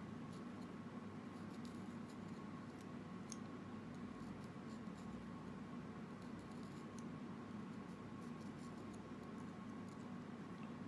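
Small carving knife cutting and trimming green mango flesh: faint scattered clicks and scrapes over a steady low hum.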